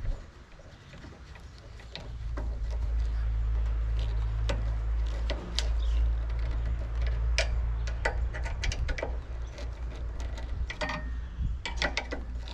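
Scattered metal clicks and clinks of a hand tool tightening the two mounting bolts of a new carburetor on a Craftsman push mower, over a low steady hum that starts about two seconds in.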